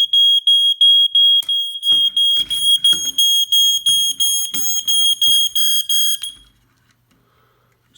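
Eveready smoke alarm going off, a loud high-pitched beep repeating about four times a second, with handling knocks from about two seconds in, then cutting off suddenly about six seconds in. It is a false alarm: this unit goes off at random and constantly.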